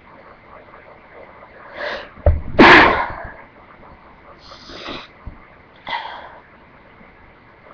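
A person sneezing once, loudly, about two and a half seconds in, after a short in-breath. Two shorter breathy sounds follow.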